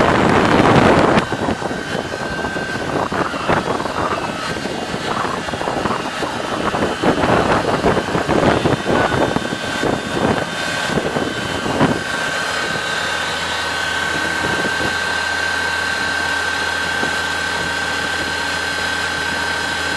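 New Holland T7060 tractor's diesel engine running under the uneven rumble of the tractor creeping over tilled ground. About twelve seconds in it settles to a steady idle, with a constant high whine.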